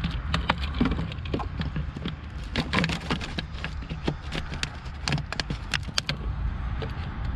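Irregular clicks and knocks of plastic fuel hoses and fittings being handled at a diesel engine's fuel filter, over a steady low hum.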